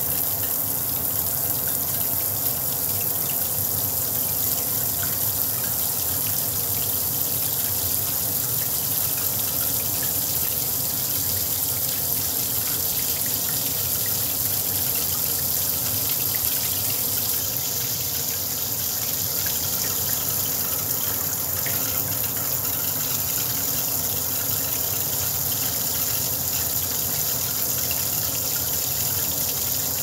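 Shower head spraying fine jets of water steadily into a washbasin, the water splashing on the basin bottom around the drain.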